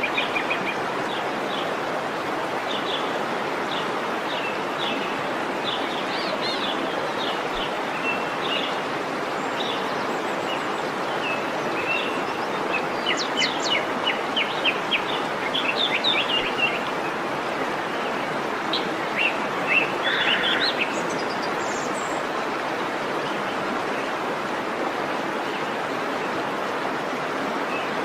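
Waterfall rushing steadily, with small birds chirping over it in scattered short runs that fade out after about twenty seconds.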